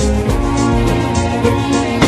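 Haunting background music with sustained notes over a pulsing bass.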